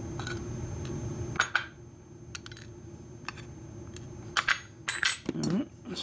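Small metal lock parts and tweezers being handled and set down on a wooden pin tray: a faint steady hum under scattered light metallic clicks and clinks, the loudest few coming together in the second half.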